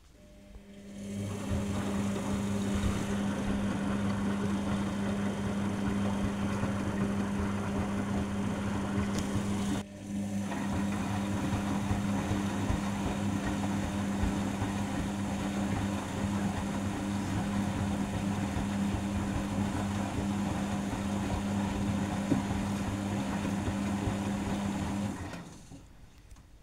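Arcelik 7103 front-loading washing machine running through its wash cycle, a steady mains hum over a wide rushing noise. It starts about a second in, breaks off for a moment about ten seconds in, and stops shortly before the end.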